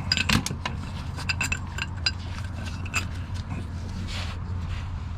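Metal tools and parts clinking with a light ringing during a rear-axle differential teardown. The knocks come irregularly through the first three seconds, then a brief scrape about four seconds in, over a steady low hum.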